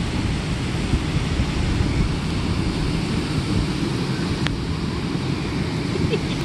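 Wind buffeting the microphone over the steady wash of breaking surf, with one faint click about four and a half seconds in.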